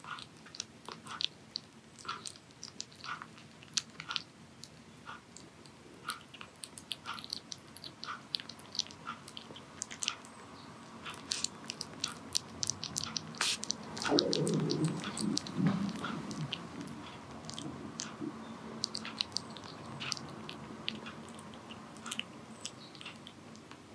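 A young Korean shorthair kitten eating wet food from a saucer: quick wet smacks and chewing clicks, many to the second. About halfway through a louder, lower sound lasts for about two seconds.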